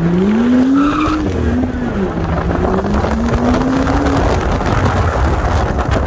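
BMW M2's N55 turbocharged straight-six accelerating hard with traction control partly off. The revs climb steeply, dip, then rise again more slowly. A brief tyre squeal about a second in marks the rear wheels breaking traction in a small drift.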